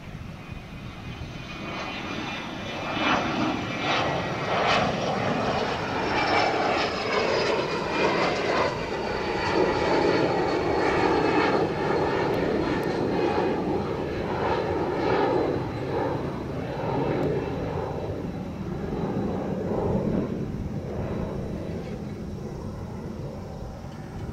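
Twin turbofan engines of a JASDF U-125A (Hawker 800-type jet) flying past low: the jet noise swells to a peak about halfway through and then fades, with a high whine that slides slowly down in pitch as it passes.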